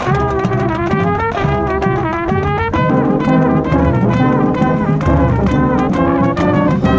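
Marching band playing: the brass section sounds full, held chords and a moving melody over steady drum strokes.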